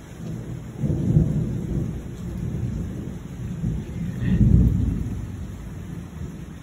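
Rolling thunder over steady rain. The rumble swells about a second in, swells again more loudly around four and a half seconds, then fades away.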